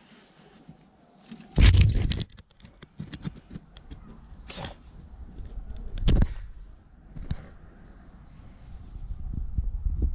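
French bulldog snuffling and bumping about right at the camera: a few short, close scuffing bursts, the loudest about a second and a half in, with quieter scuffs between.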